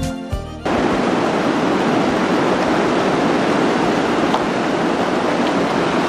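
Steady rushing noise of a fast, silty river running in spate. Background music stops abruptly about half a second in, and the water noise takes over.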